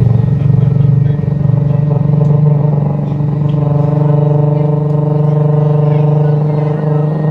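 A man's vocal imitation of a helicopter: a steady, fast-chopping drone like rotor blades, with a higher whine building in from about halfway, meant as the helicopter drawing nearer from a distance.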